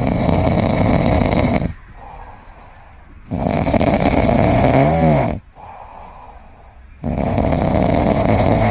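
Loud snoring: three long snores with quieter breaths between them, the middle one ending in a short whistling squeak.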